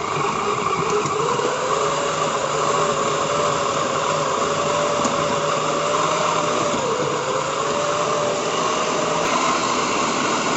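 Electric food processor's motor running steadily, its blade mincing raw boneless chicken cubes. The hum's pitch dips briefly about seven seconds in.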